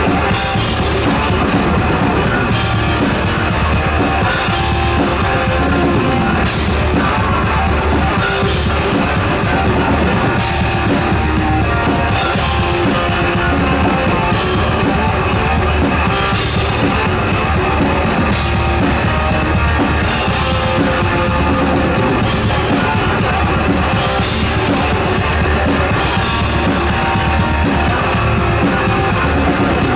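Thrash metal band playing live: distorted electric guitars, bass and a drum kit pounding through an instrumental passage, with cymbals hit in a steady pattern about every two seconds.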